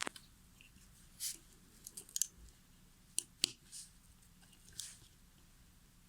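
Scattered light clicks and short scratchy scrapes of a small circuit board and parts being handled on a workbench, the sharpest click about three and a half seconds in.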